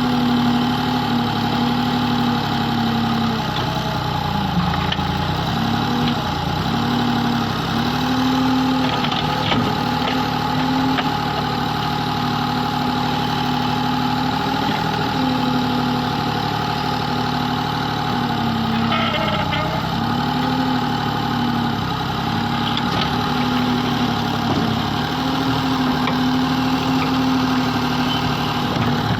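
Excavator's diesel engine running steadily, its note dipping briefly every few seconds as the machine works.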